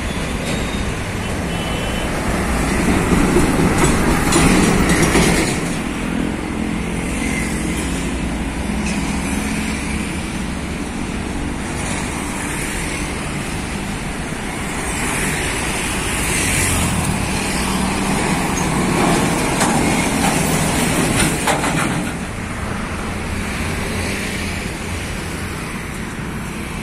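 Busy road traffic: diesel trucks and motorcycles passing one after another, their engine and tyre noise swelling as each goes by, loudest a few seconds in.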